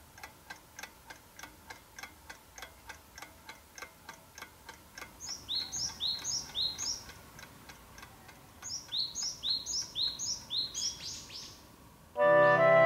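A clock ticking rapidly and evenly. About five seconds in, a small bird chirps a short run of falling notes, and from about nine seconds a longer run follows. Music with a clarinet starts just before the end.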